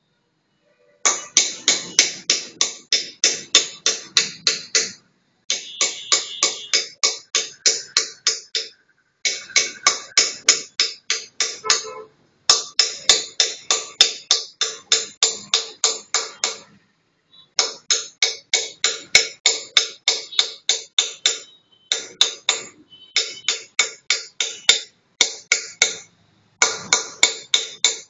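Hand-held pointed engraving tool pecking dots into polished black granite: sharp taps about five a second, in runs of one to four seconds broken by short pauses.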